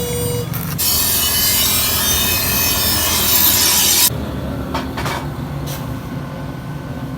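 Power grinder grinding steel: a loud, continuous hissing rasp for about three seconds that stops suddenly, leaving a lower steady hum.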